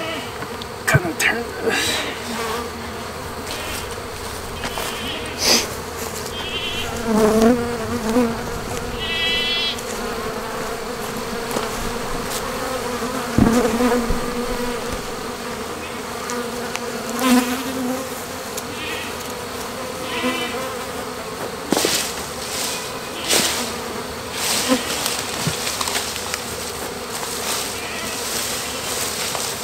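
Honeybees buzzing around a hive in a steady, continuous hum, with several sharp knocks and clicks scattered through it and a few short high chirps.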